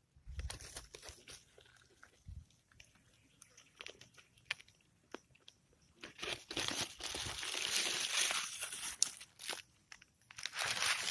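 Anahaw fan-palm leaf rustling and crackling as it is handled: scattered crackles at first, then dense continuous crinkling from about six seconds in, with a short pause near the end.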